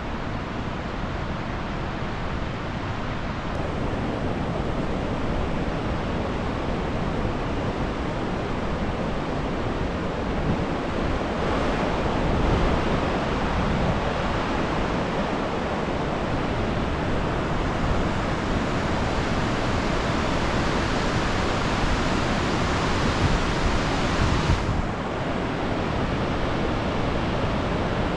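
Steady rushing noise of a ride in an open-sided Kurobe Gorge trolley train, with wind buffeting the microphone. It brightens a few seconds in and turns duller suddenly near the end.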